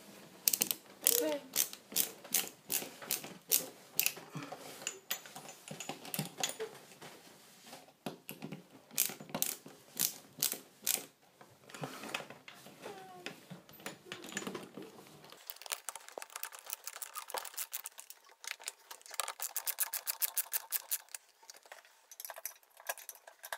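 Ratcheting hand screwdriver clicking as a screw is driven into wood, in runs of sharp clicks about three a second, with a quicker run of clicks near the end.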